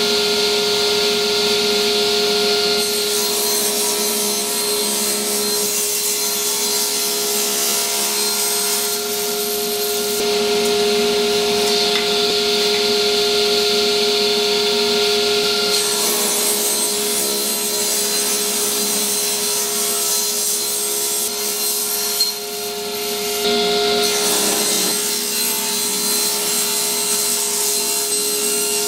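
Electric woodworking power tool running at a steady high pitch while cutting wood. The cutting hiss grows and fades in stretches as the work goes on.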